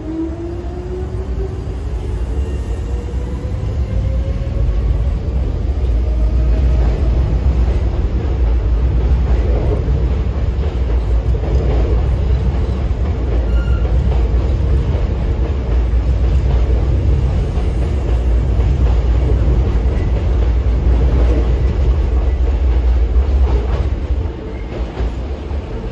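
Hankyu 7000 series electric train pulling out of the platform. Its motor whine rises in pitch over the first several seconds as it accelerates, then gives way to the steady rumble of the cars rolling past, which drops away near the end as the last car clears.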